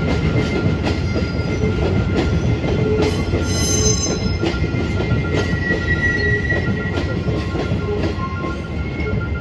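Loaded cement tank wagons of a freight train rolling past: a steady rumble with irregular clicks of wheels over the rail joints, and thin wheel squeal that peaks into a brief high screech about four seconds in.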